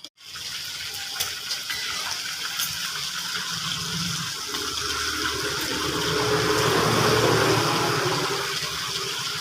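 Rushing, gushing water that starts abruptly, swells to its loudest about two-thirds of the way through, then eases a little.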